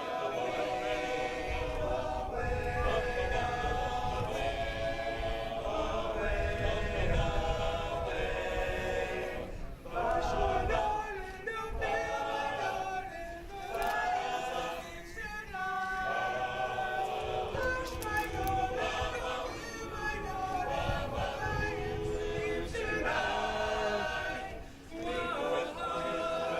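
Barbershop chorus singing a cappella in close four-part harmony, with short breaks between phrases.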